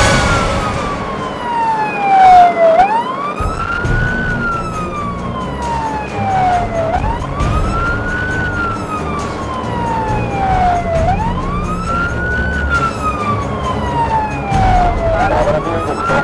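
Fire engine siren on a slow wail: the pitch climbs quickly over about a second and sinks slowly over about three, repeating roughly every four seconds, over low road and engine noise from the moving truck.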